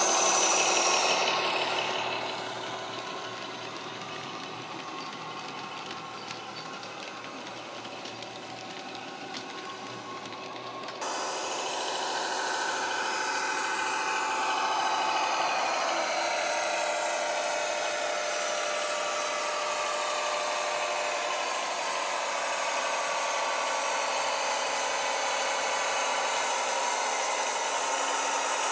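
ESU BR216 model diesel locomotive's factory-fitted sound decoder playing diesel-hydraulic engine sound through the model's speaker as it runs, with wheels running on the track. The sound fades as the loco moves away. About eleven seconds in it changes suddenly to a louder, steady running sound with slowly rising and falling whines.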